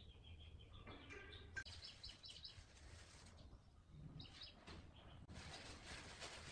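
Near silence with faint birds chirping: runs of short, quick high notes in the first half and again about four seconds in, over a faint hiss.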